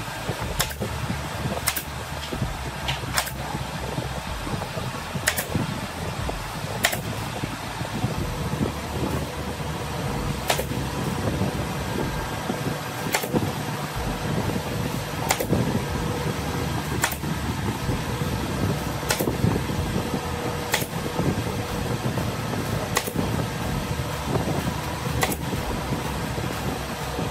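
Sharp single shots from a pneumatic nail gun fastening the wooden frame, one roughly every two seconds, over a steady mechanical hum.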